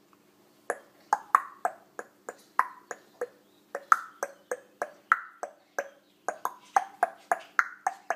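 A toddler sucking and smacking at a sippy cup's spout: a rapid run of sharp wet clicks, about three or four a second, starting just under a second in. A faint steady hum runs underneath.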